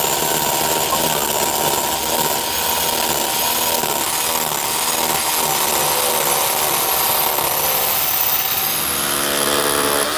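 A power tool running steadily.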